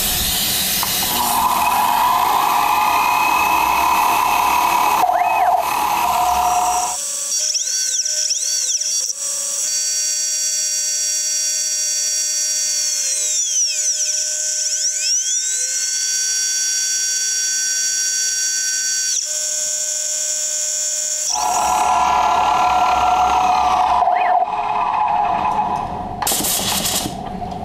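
CNC milling machine cutting aluminum with a 90-degree spotting drill used as a chamfer mill. The spindle and cut run steadily, and whining motor tones sweep up and down in pitch as the table moves. Near the end, a short blast from an air blow gun clears chips.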